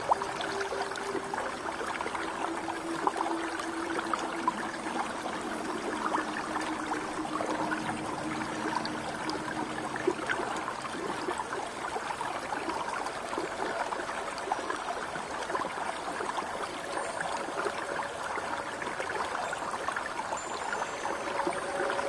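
Shallow stream running over and around rocks: a steady babble of small splashes and gurgles, even throughout.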